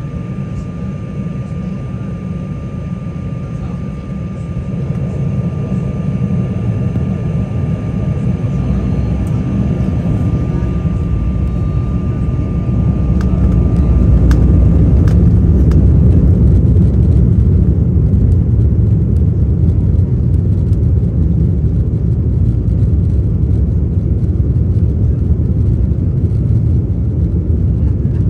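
Embraer 190's GE CF34-10E turbofan engines spooling up to takeoff thrust, heard inside the passenger cabin. The rumble grows louder about four seconds in and again about halfway through, then holds steady and loud as the takeoff roll begins. A thin high tone fades out around the same point.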